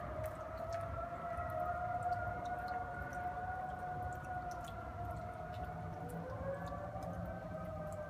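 Several Federal Signal 2001 electromechanical tornado sirens wailing at once. Their steady tones overlap and slowly waver in pitch.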